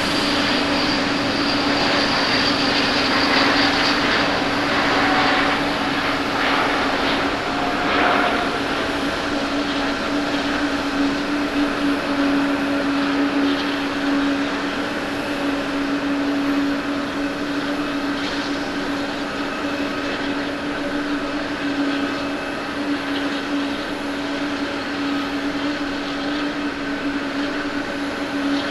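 Japan Airlines Airbus A350's Rolls-Royce Trent XWB engines at takeoff thrust: a steady jet roar with a constant hum under it. It is loudest and hissiest over the first several seconds as the jet rolls past, then eases slightly as it climbs away.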